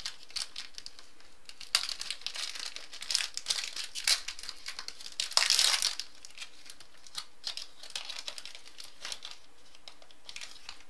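Trading card pack wrappers being torn open and crumpled: an irregular run of crinkling, with the loudest rip about five and a half seconds in.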